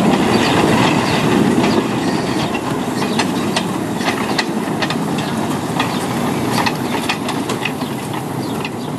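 A 15-inch gauge miniature steam train, the locomotive and its passenger coaches, rolls slowly past with a steady rumble. Its wheels click repeatedly over the rail joints as the coaches go by.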